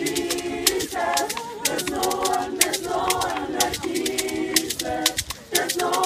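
Gospel choir singing a cappella, many voices together in harmony, with short sharp beats keeping time about twice a second.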